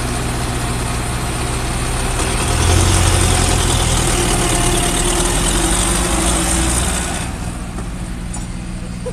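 Heavy diesel engine of a road-building machine running at a steady speed, with a hiss over it. It grows louder about two and a half seconds in, and the hiss drops away at about seven seconds.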